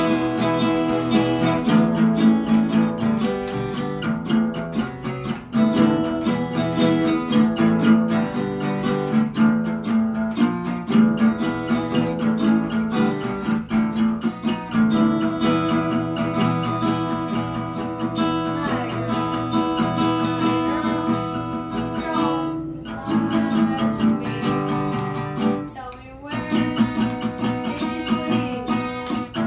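Acoustic guitar strummed steadily through a chord progression, the chords changing every second or two. The strumming breaks off briefly twice, about three-quarters of the way through.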